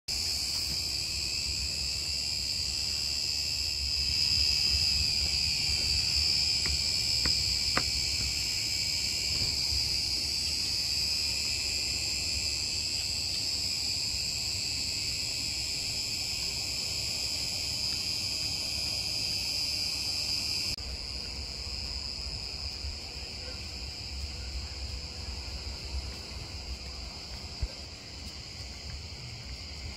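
Steady, high-pitched chorus of insects, dropping suddenly in level about two-thirds of the way through.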